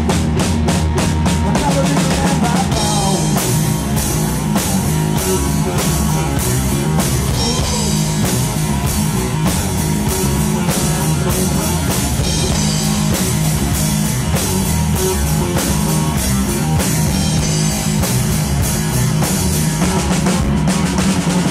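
Live rock band playing an instrumental passage: electric guitar over a drum kit, with a run of rapid drum strikes in the first few seconds.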